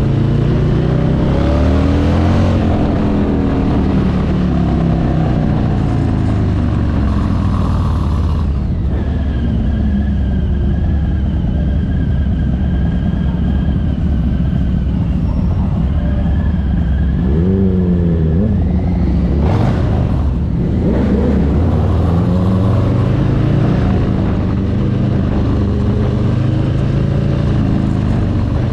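Motorcycle engine out on the road, revving up and down through the gears, idling steadily while stopped at a light near the middle, then revving again as it pulls away.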